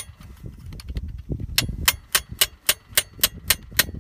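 Ball-peen hammer striking a steel pin punch to drive the cross pin into a Hi-Lift jack's climbing mechanism: one sharp metal tap, then after a short pause a run of about nine quick, ringing taps, three to four a second.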